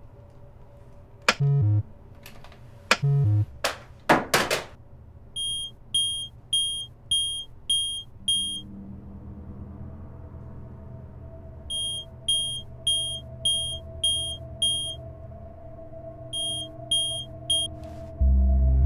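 Electronic beeping: a short, high, pure tone repeated about twice a second in three runs, the last few closer together, over a low synthesizer drone. A few sharp electronic hits come in the first seconds, and a deep rumble swells in just before the end.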